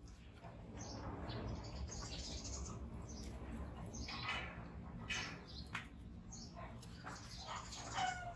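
Repeated short, high-pitched animal squeaks and chirps, with a louder falling whine near the end.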